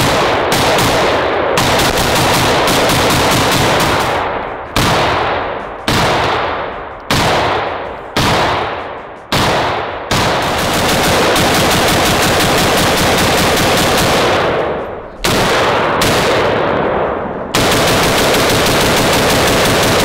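Sig Sauer MCX Spear 7.62x51/.308 rifle fired in rapid strings of shots. A few short pauses let the echo die away between strings.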